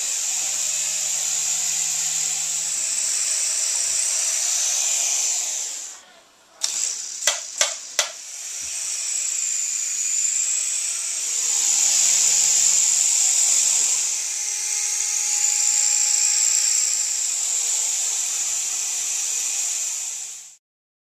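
High-pitched whine of a small electric toy helicopter's motor and rotor, wavering slightly in pitch. It cuts out about six seconds in, a few sharp clicks follow, then it spins back up and runs until it stops near the end.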